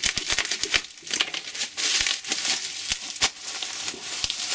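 Packing material crinkling and rustling as an item is pulled out of a cardboard box, with scattered small knocks and clicks.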